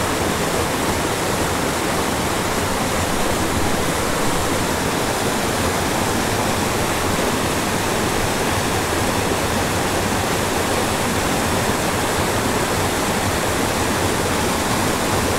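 Small waterfall on a mountain creek cascading over rocks into a pool: a steady, unbroken rush of white water.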